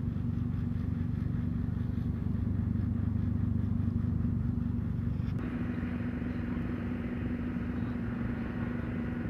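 A motor running steadily: a low, even hum with one constant tone. About five seconds in it drops a little and a higher hiss joins it.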